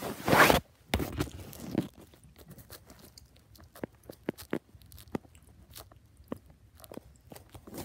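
A short loud rush of noise at the start, then crunchy cheese-dusted chips being chewed close to the microphone: scattered sharp crunches.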